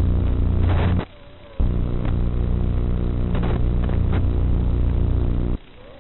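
Electrical buzz on the analog 5.8 GHz FPV video link's audio: a steady hum with many even overtones that cuts out suddenly about a second in, returns half a second later and drops out again near the end, with a few crackles of static.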